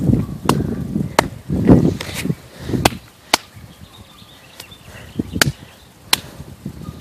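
Sharp single cracks of airsoft guns firing, about seven, spaced irregularly. In the first half they come over the rustle and thuds of someone moving on foot through weeds.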